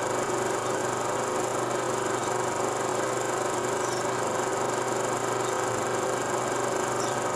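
Steady, unchanging hum and hiss with several fixed tones held throughout, with no strikes or breaks.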